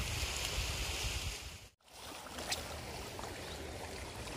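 Wind rumbling on the microphone over the wash of calm sea water, with a brief dropout a little under two seconds in.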